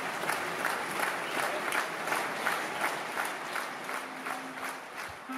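Audience clapping in rhythm, about three claps a second, easing off near the end as a clarinet sounds a brief held note.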